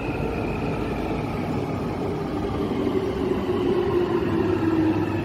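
London Underground train coming into the platform, its motor whine falling slowly in pitch over a steady rumble as it slows and grows a little louder.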